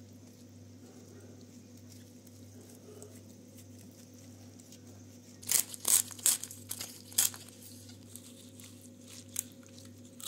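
Raw scaled fish fillets handled with gloved hands on a wooden cutting board: a few quiet ticks over a low steady hum, then a cluster of sharp wet slaps and clicks about five to seven seconds in as the fillets are turned over onto the board.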